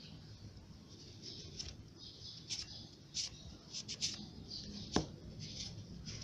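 Cotton cloth rubbing and wiping a rusty metal tool after its vinegar soak, loosening the rust: a run of short scratchy rubs, with one sharp click just before five seconds in.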